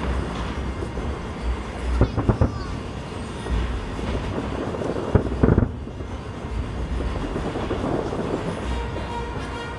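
Fireworks heard from about a mile away: a continuous rumble of many overlapping bursts and crackles, with sharper booms about two seconds in and again around five seconds in.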